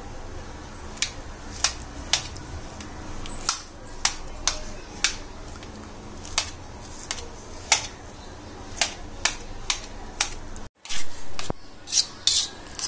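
Perforated steel spoon mashing soft cooked pumpkin in a hammered metal bowl: irregular sharp taps and clicks of the spoon striking the bowl, about one or two a second.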